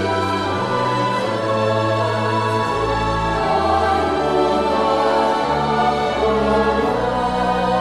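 Three-voice mixed polyphonic choir singing a Marian folk hymn with orchestral accompaniment, sustained chords over a bass line that changes note about once a second.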